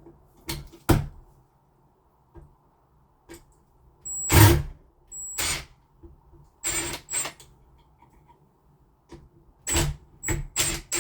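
Hands working on smart lock hardware fitted to a door: irregular knocks and clicks of metal and plastic parts, several with a short high metallic ring, the loudest about four seconds in and a quick cluster near the end.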